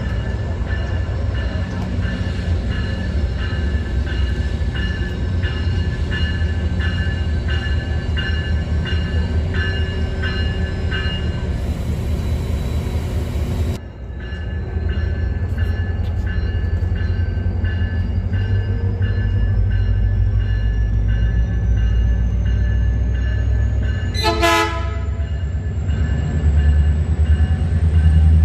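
Diesel locomotive's engine running with a steady low rumble. A rhythmic ringing sounds during roughly the first eleven seconds. About twenty-four seconds in comes one short blast of its air horn.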